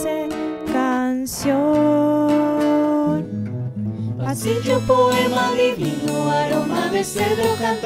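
Colombian pasillo played on acoustic guitars and piano, with a woman's voice singing a long held phrase. After a short instrumental gap a little past the middle, several voices sing together over the guitars.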